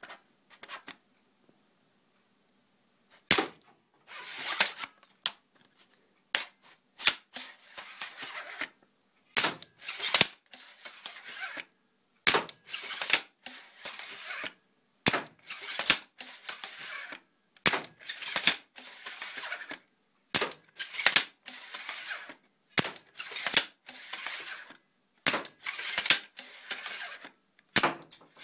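A 3D-printed repeating bow powered by rubber bands, cocked and fired shot after shot: sharp snaps and clacks of the plastic mechanism and string, with arrows striking a polystyrene target and scraping noises as the string is drawn back between shots.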